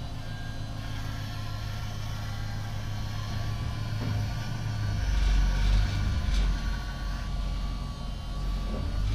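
A vehicle's motor running steadily with a low hum, which drops deeper about five seconds in.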